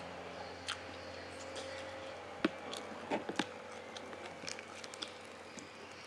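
A person eating fried bird and rice with his hands: soft chewing and mouth clicks, scattered and irregular, the sharpest about two and a half seconds in and a quick few just after three seconds.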